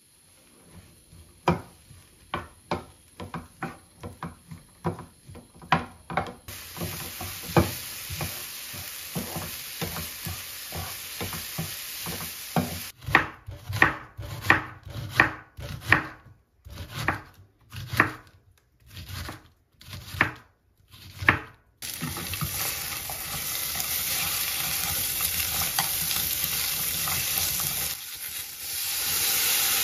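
A spatula clicking and scraping in a frying pan of diced vegetables, with a sizzle rising from a few seconds in. Midway comes a run of sharp knife strikes slicing an onion on a wooden cutting board. After that a steady, louder sizzle of frying.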